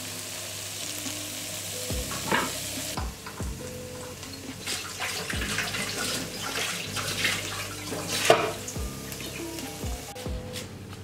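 Diced chicken and green peppers sizzling in a nonstick frying pan and stirred with a spatula; the sizzle stops after about three seconds. A background music track with a beat plays throughout.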